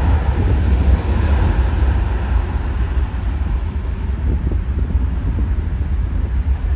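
Wind buffeting the microphone with a heavy low rumble, while the engine noise of a departing or arriving airliner fades away over the first few seconds.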